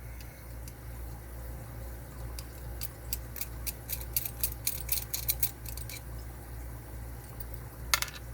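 A run of quick, light metallic clicks, about five or six a second for a few seconds, with one more click near the end, from a screwdriver being worked on the Phillips screw down the Yale padlock's shackle hole.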